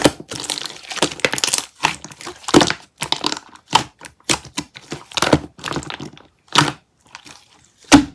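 Crunchy crackling and clicking as a pink mixture is pressed and worked by hand. It comes in irregular strokes that thin out near the end.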